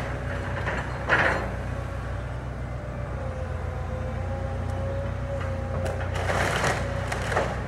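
Kobelco excavator's diesel engine running steadily while its bucket breaks into the timbers of an old wooden barn: one loud crunch about a second in, and a longer spell of wood cracking and crushing near the end.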